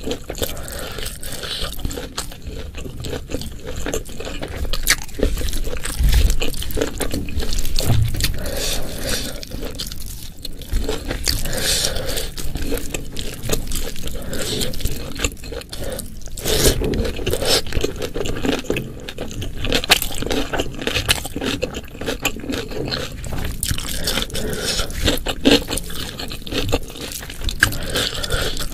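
Close-miked eating sounds: wet chewing with irregular crunches and clicks, as from pickled vegetables and fried petai beans, with some scraping along the way.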